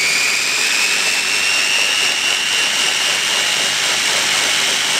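Mitochiba CH100 electric food chopper running at full speed, puréeing mango pieces with sweetened condensed milk. The motor gives a loud, steady high whine whose pitch creeps up a little over the first couple of seconds.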